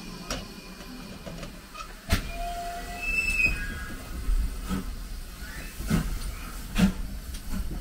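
Great Western small prairie tank steam locomotive moving slowly along the platform: a low rumble with a series of sharp knocks and a few brief, faint squeals from the wheels on the rails.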